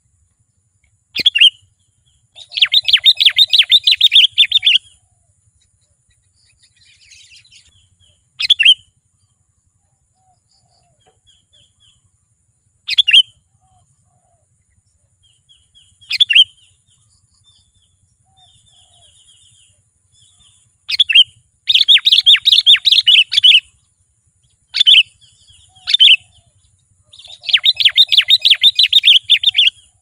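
Sooty-headed bulbul calling: single sharp call notes every few seconds, and three bursts of rapid chattering notes of about two seconds each, near the start, about two-thirds through and near the end.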